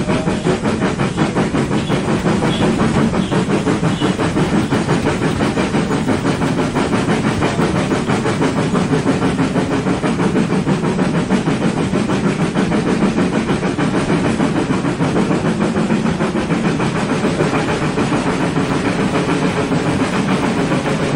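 HO scale model trains running on the layout's track close to the microphone: a steady, fast rattle of wheels and motors that does not let up.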